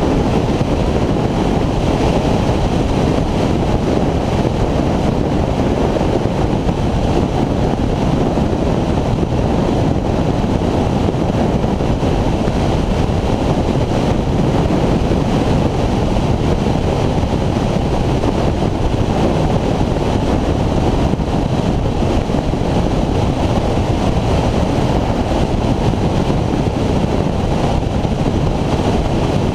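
Steady wind noise rushing over the camera microphone as a Honda VFR800X Crossrunner is ridden at road speed, with the bike's V4 engine running underneath.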